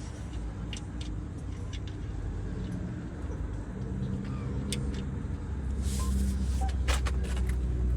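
A vehicle engine running, with a steady low drone that grows louder in the second half. A few light clicks sound over it.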